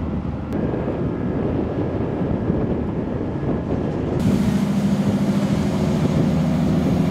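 Diesel engines of harbor tugboats and a workboat running, with water churning in their wakes. About four seconds in, the sound changes abruptly to a closer, steady engine drone over the hiss of churning water.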